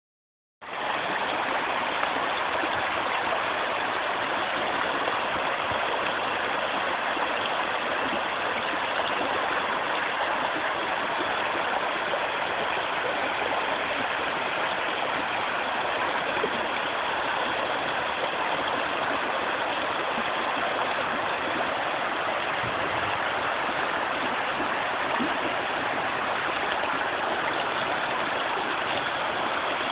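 Shallow, rocky river running over stones in small rapids: a steady rush of water.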